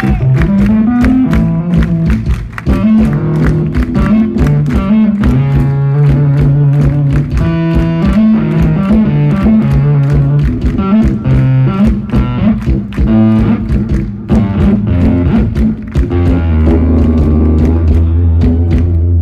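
Live jazz-fusion band playing: a busy drum beat with a bass line and guitar and keyboard parts, heard loud and steady.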